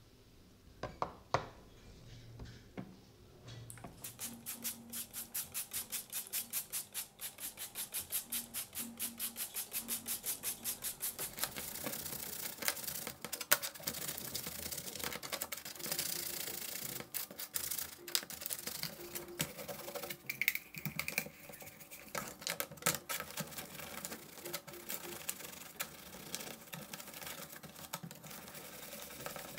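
Stiff bristle brush scrubbing wet, rusty steel parts of a pneumatic scissors in a sheet-metal tray. A few scattered clicks come first, then quick, evenly spaced strokes from about four seconds in, giving way to faster, denser scrubbing.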